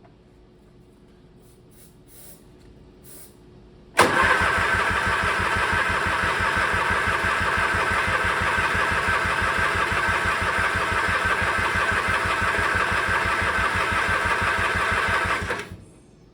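Craftsman riding mower's electric starter cranking the engine steadily for about eleven seconds without it catching, starting about four seconds in and stopping abruptly near the end. It fails to fire even on starting fluid, a sign of no spark.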